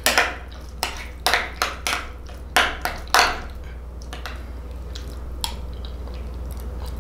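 Metal spoon stirring thick fonio porridge in a glass bowl, clinking and scraping against the glass several times over the first three seconds, then going quieter.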